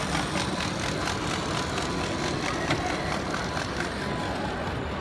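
HOe narrow-gauge model train running past on its track, its wheels clicking faintly and irregularly over the rails, against a steady hall background noise.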